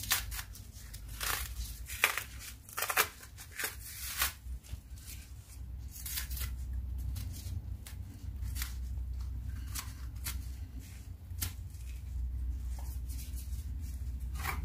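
A knife peeling the thick green skin off a matoke (green cooking banana), with irregular short scrapes and tearing snaps of peel coming away. A low steady hum runs underneath.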